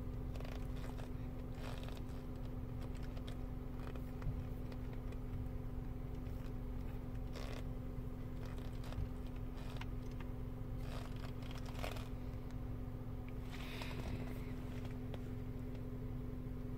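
Steady low hum in a car's cabin, with scattered light clicks of a fingertip tapping the head unit's touchscreen and rustling of a leather jacket sleeve, the longest rustle a little before the end.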